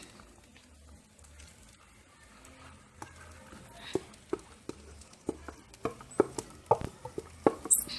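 Spoon stirring rice in a pot: irregular light clicks and taps of the spoon against the pot, starting about three seconds in and growing more frequent toward the end.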